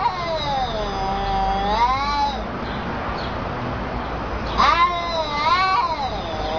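Cats yowling in an angry standoff: two long, drawn-out caterwauls, the first sliding down and back up over about two and a half seconds, the second starting about four and a half seconds in and wavering for about a second and a half.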